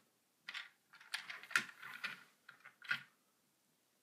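Hard plastic toy parts clicking and clattering as an Imaginext fireman figure is handled and fitted into a toy fire truck: a string of light, irregular clicks over about three seconds.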